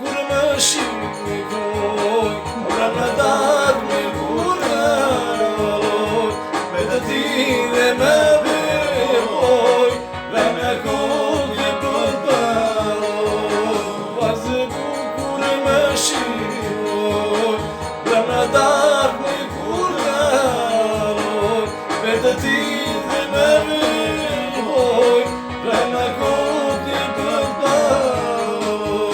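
Music: a song with a singing voice over instrumental accompaniment, running without a break.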